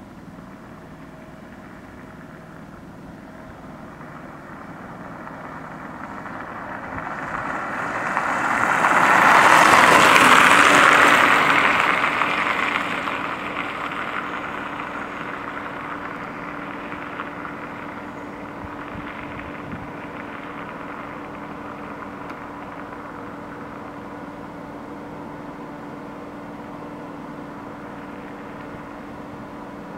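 A road vehicle passes by, growing louder over a few seconds to its peak about ten seconds in and then fading away, over a steady low engine hum.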